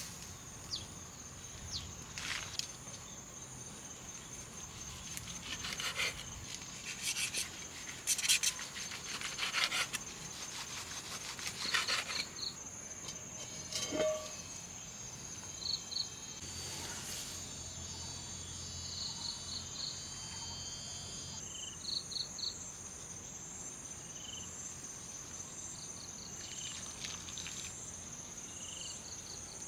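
Insects chirping in a steady, unbroken high drone. Scattered light clicks and rustles come in the first twelve seconds, and short high chirps are heard now and then in the second half.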